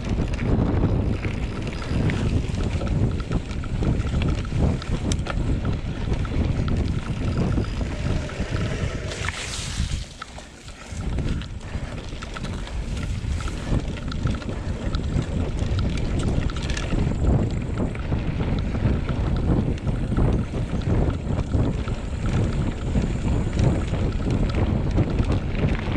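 Wind buffeting the microphone: a loud, gusty low rumble with a short lull about ten seconds in.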